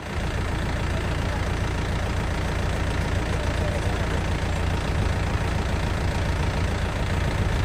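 Mahindra Yuvo tractor's diesel engine running steadily as it reverses a trolley loaded with sand. The sound is mostly deep and low, with no changes in pitch or level.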